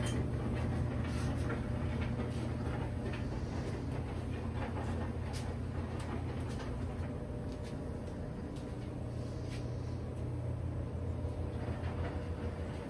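GE GFD55ESSNWW front-load dryer running empty just after start-up: a steady low hum from the drum and blower, with scattered light ticks.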